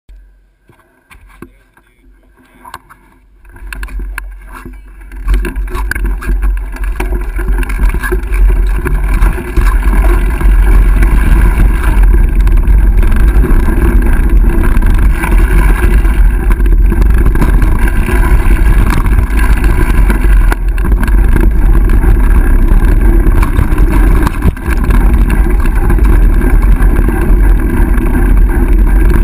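Wind buffeting the microphone of a camera on a mountain bike riding downhill, mixed with the rolling rumble and rattle of tyres over a dirt trail and wooden plank boardwalk. It is quiet for the first few seconds, builds from about four seconds in and stays loud and steady.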